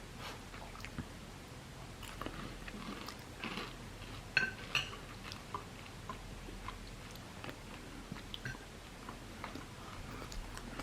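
Faint chewing and mouth sounds of someone eating an air-fried chicken leg, with scattered soft clicks and smacks.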